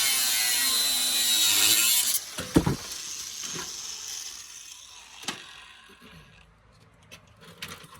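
A power tool runs loud and hissing for about two seconds, then stops abruptly and fades away over the next few seconds. A heavy knock follows, then several sharp clicks and taps.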